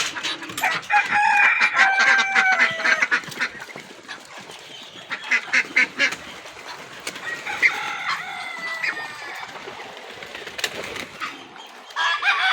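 Mixed flock of desi chickens and ducks calling: a busy run of clucks and chirps, loudest in the first few seconds, then quieter calls with a few short clicks.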